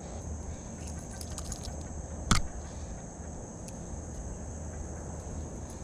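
Steady high-pitched insect chorus from the bank vegetation, with one sharp click a little over two seconds in.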